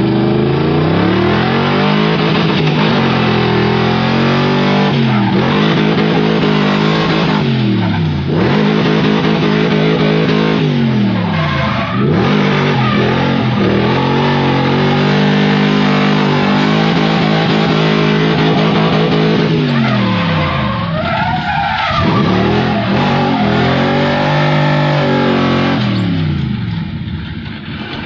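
BMW E30 drift car's engine heard from inside the cabin, its revs climbing and dropping back again and again through a drift run, with tyres screeching. It eases off near the end.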